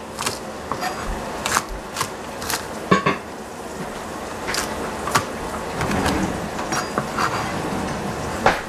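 Chef's knife chopping green onions on a plastic cutting board: irregular sharp knocks of the blade on the board, several in the first three seconds, then fewer and further apart.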